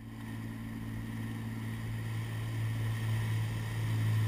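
Motorboat engine running steadily: a low, even drone with a faint hiss above it, growing slightly louder.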